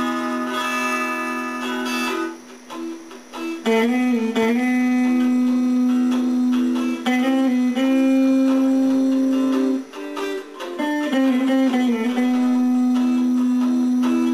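Guitar music of long held notes that slide and bend between pitches, with brief lulls about two seconds in and again near ten seconds.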